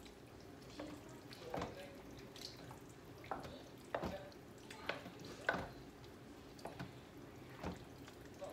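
Wooden spoon stirring wet chopped tomatoes in a slow cooker's crock: faint wet squelches and light knocks of the spoon against the pot, irregular, about once a second.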